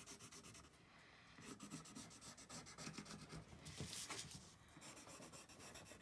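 Pencil scratching faintly over paper in quick repeated strokes while darkening traced lines, with the sheet sliding on the hardboard clipboard partway through.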